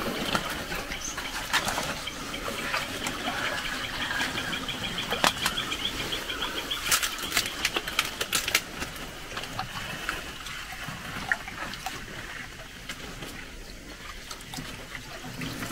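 A frog lure being worked on the surface of swamp water among leaves: light plops and ticks, with a cluster of sharp ticks about five to nine seconds in. A rapid high trill runs in the background through the first half.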